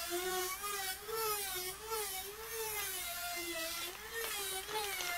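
Small handheld electric power tool whining, its pitch rising and falling every half second or so.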